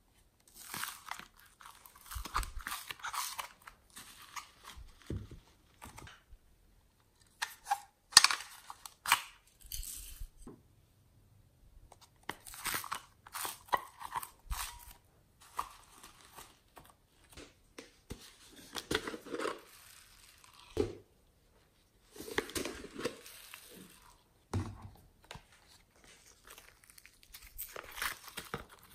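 Hands pressing, peeling and lifting sheets of slime, heard as irregular bursts of sticky, wet handling noise with short quiet gaps between them.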